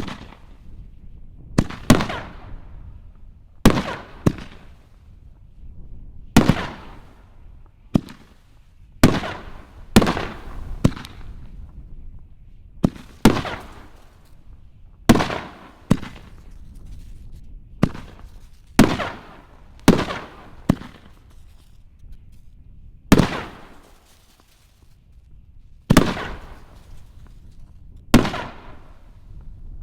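Peacock Spider 5-inch canister firework shells firing one after another: about twenty sharp booms, one every second or two, each trailing off in a fading echo.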